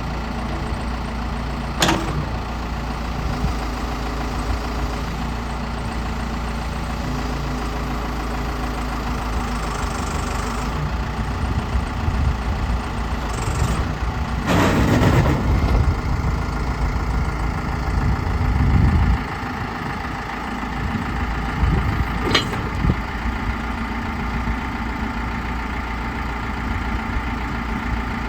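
Case 580 Super L backhoe loader's four-cylinder diesel engine running steadily. It gets louder for several seconds midway, with a short loud rush of noise, and there are a couple of sharp knocks.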